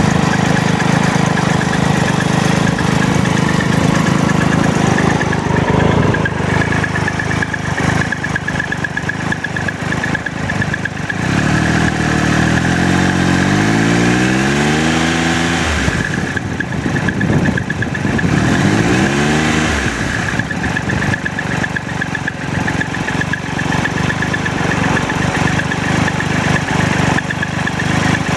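2012 Triumph Tiger Explorer's three-cylinder engine idling with a rattling noise, the fault the owner wants the dealer to sort out. Twice in the middle the throttle is blipped, the revs rising and then dropping back to idle.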